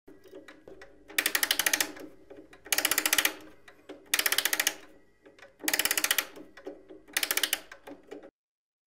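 Five bursts of rapid mechanical clattering, each under a second long and about a second and a half apart, each fading away before the next. The sound cuts off suddenly near the end.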